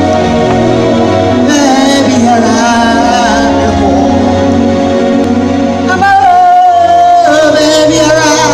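Ghanaian gospel worship music: a voice singing long, wavering held notes over sustained keyboard chords and a steady bass.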